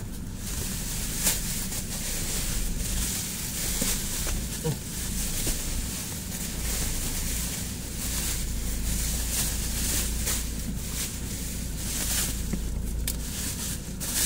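Black plastic bubble wrap rustling and crinkling as it is handled and wrapped around a cardboard box, with many small sharp crackles, over a steady low hum.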